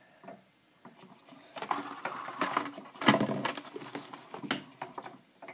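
Paper napkin rustling and crackling in someone's hands, with scattered small clicks, loudest about three seconds in.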